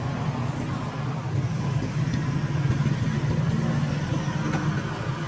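Steady low engine rumble of road traffic.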